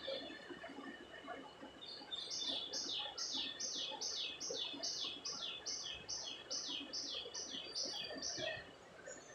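A bird calling: a steady run of about seventeen short, high notes, each sliding down in pitch, at a little under three a second, starting about two seconds in and stopping shortly before the end, with a few fainter chirps before it.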